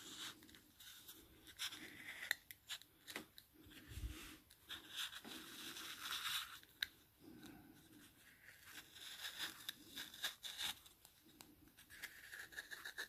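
Stanley knife blade worked around the rubber seal of an instrument glass, cutting and scraping between rubber and glass: faint, irregular short scratching strokes with small clicks.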